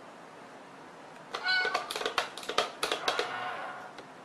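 A short meow, then a quick run of mechanical clicks and rattles as the lid of a cat-in-a-box coin bank toy pops open.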